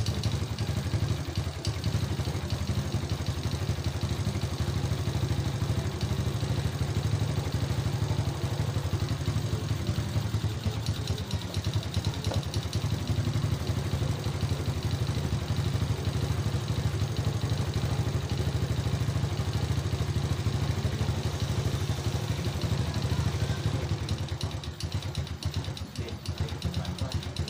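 Honda Cub-type motorcycle's small single-cylinder four-stroke engine idling steadily while its carburetor is adjusted for an even idle.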